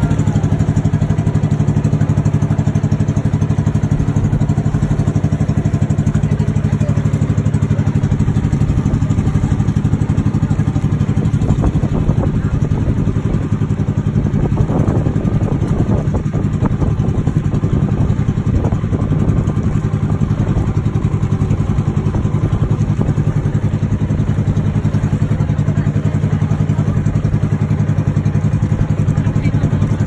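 Boat engine running steadily at cruising speed, an even low drone that does not change pitch.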